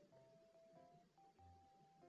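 Quiet background music: a simple melody of single held notes stepping up and down.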